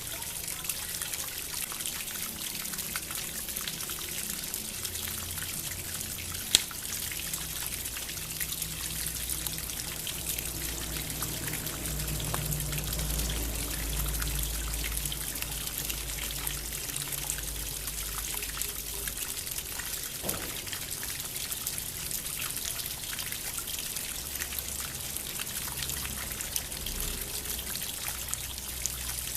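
Bamboo water fountain trickling and pouring steadily, with faint low sustained tones underneath. A single sharp click about six and a half seconds in.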